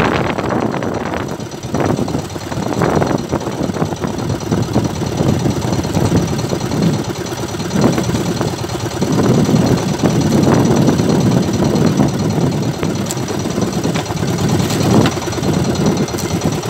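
Small engine of an outrigger fishing boat running steadily at low speed, mixed with wind and water noise.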